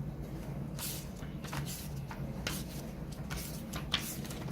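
Several short rustling and scraping handling noises, one after another from about a second in, over a steady low hum.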